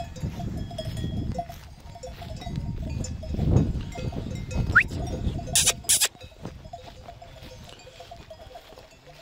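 Bells on a flock of sheep jingling steadily, with a heavy low rumble over the first six seconds and two short hissing bursts about six seconds in.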